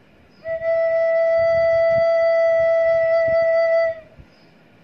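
Plastic soprano recorder playing a single long, steady note E, fingered with the thumb hole and five front holes covered. The note starts about half a second in and stops about four seconds in.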